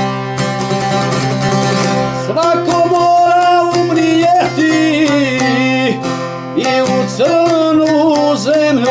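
A long-necked Bosnian plucked lute of the šargija type plays an instrumental passage: a steady drone under a sliding, ornamented melody that grows louder and busier about two seconds in.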